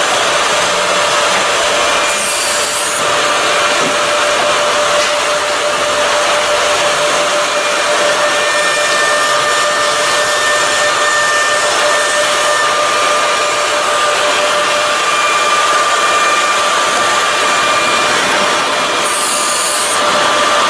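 Automatic-tool-change CNC wood router running, its spindle giving a steady whine over the noise of the bit cutting wood. Two brief high hissing bursts come, one about two seconds in and one near the end.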